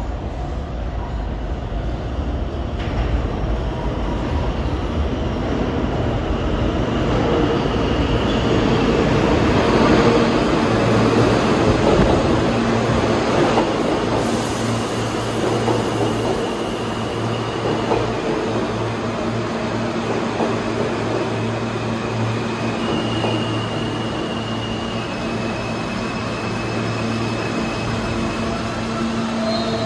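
New York City subway train moving in the station, a continuous rumble of wheels on rail that is loudest about ten to thirteen seconds in. From then on, steady humming tones and a few high whining tones run with it.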